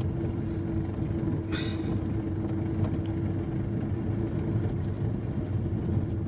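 Car driving slowly on a rough dirt road, heard from inside the cabin: a steady low rumble of engine and tyres with a steady hum. A brief hiss about a second and a half in.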